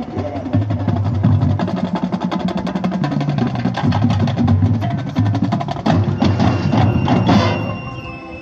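Band music driven by percussion: rapid, even drum strokes over a low held bass line that steps between notes, with louder accented chords near the end.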